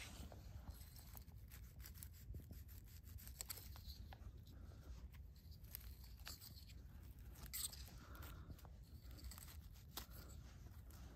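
Faint rustling and crackling of dry pine needles as a folding knife works at ground level, cutting saffron milk cap stems, with scattered small clicks and one sharper crack about two-thirds of the way in.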